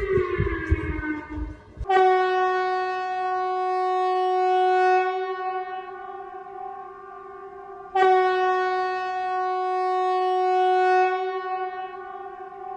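Emergency alert alarm sound: a falling siren tone dies away in the first two seconds, then two long steady tones at the same pitch, each starting abruptly and lasting about five seconds.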